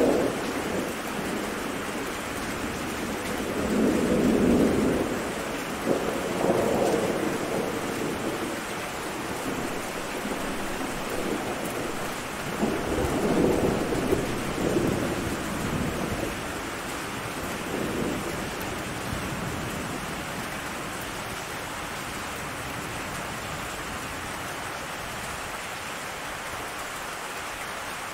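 Steady rain with thunder: low rumbles swell and fade several times through the first two-thirds, then only the rain goes on.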